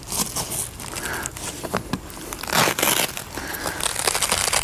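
Hands pushing and working a leather bolster guard into the crease of a car seat, with the leather and the textured seat fabric rustling and crinkling in uneven bursts.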